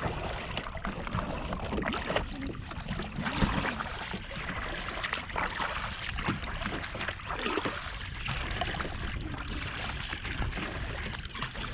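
Kayak being paddled hard through choppy water: double-bladed paddle strokes splashing in and out of the water, over waves slapping the hull, with wind rumbling on the microphone.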